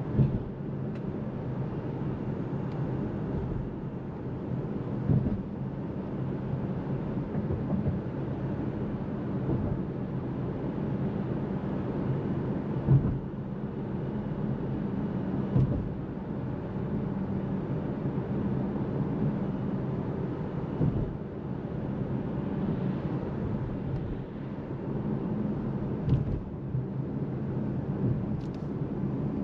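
Seres 3 electric SUV driving, heard from inside the cabin: a steady low tyre and road rumble with no engine note, and a few short thumps along the way.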